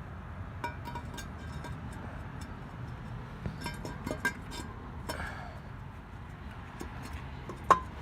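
Scattered metal clinks and taps, each with a short ring, as a turbocharger's exhaust housing is worked into place on the engine. The sharpest clink comes near the end, over a steady low hum.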